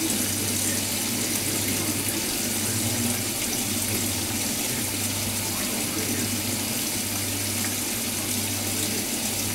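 Hotpoint Ultima WT960G washing machine filling with water: a steady rush of water coming in through the inlet, over a low steady hum.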